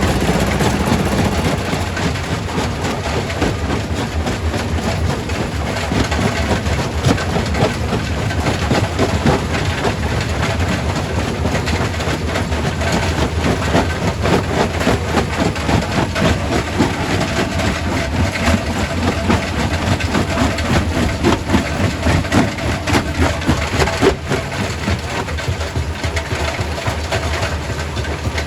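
Quarry primary rock crusher running with a steady low hum, with frequent irregular knocks and cracks of stone being broken in it.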